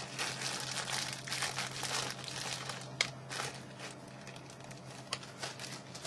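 Crinkling and rustling of plastic packaging being handled, densest in the first three seconds and then thinning out, with a sharp click about three seconds in.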